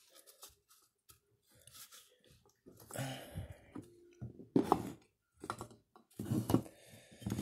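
Small clicks, squelches and crinkles of oil-soaked paper towel being pressed into the rear ball bearing of a Kirby vacuum motor, with a couple of louder knocks from handling the parts partway through.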